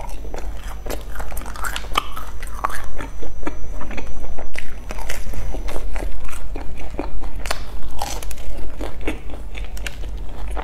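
Close-miked biting and chewing of crumb-coated fried bread buns: many irregular sharp crunches and mouth clicks.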